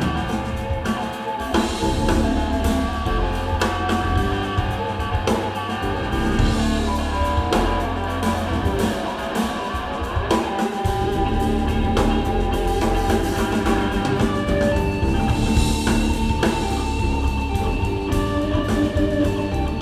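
Live instrumental rock groove from a trio: electric guitar playing over bass guitar and a drum kit keeping a steady beat.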